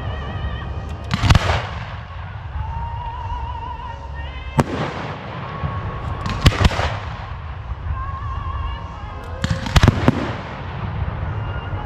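Firework shells bursting as sharp reports, about once every two or three seconds, with two or three close together near the end, over music carrying long held, wavering notes.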